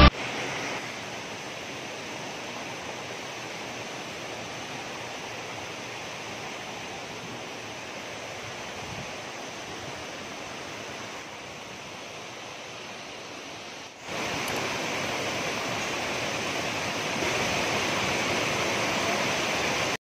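Steady rush of a rocky mountain stream and its small waterfall cascades. The water noise dips briefly about two-thirds of the way through and is louder after that, rising a little more near the end.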